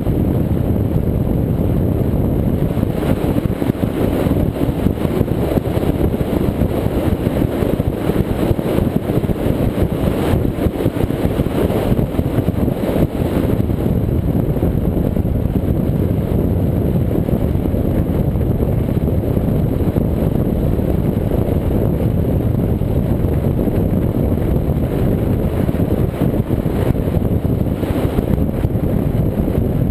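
Cigarette Gladiator powerboat running at speed: a steady, loud, low engine drone blended with water rush off the hull, holding even throughout.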